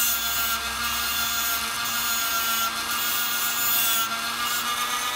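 High-speed rotary tool running steadily with a fixed whine, its 80-grit 3M plastic abrasive bristle disc rubbing and scraping against the surface of a metal ring to strip it back.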